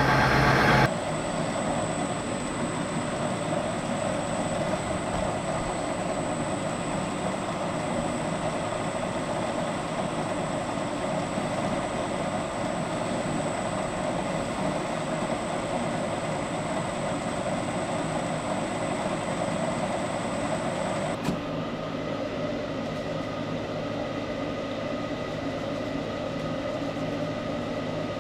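Machine tool running steadily in a metalworking shop, with a thin high whine over it that cuts off suddenly about three-quarters of the way through.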